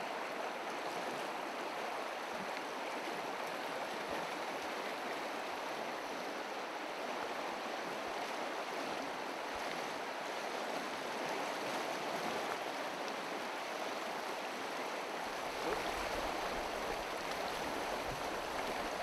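Shallow river rushing steadily over stones. A low rumble comes in about three-quarters of the way through.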